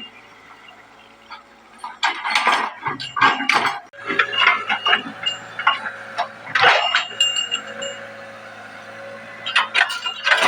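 Excavator working: a steady engine hum, with bursts of clanks and scrapes from the bucket and machinery at about two to four seconds, near seven seconds and near the end.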